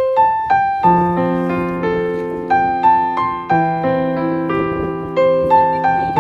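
Background music: a piano melody with sustained bass notes, played at a gentle, even pace.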